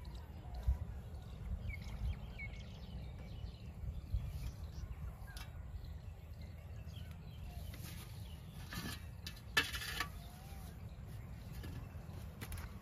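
Wind rumbling on the microphone, with a few faint bird chirps. About nine to ten seconds in come a few brief scraping and clattering handling noises.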